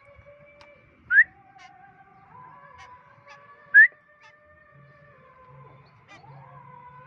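Two short whistles sliding upward, loud and about two and a half seconds apart, over faint steady held tones.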